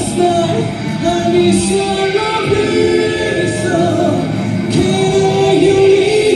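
Rock band playing live: a male singer sings into a microphone over electric guitar and drums, with cymbal washes now and then.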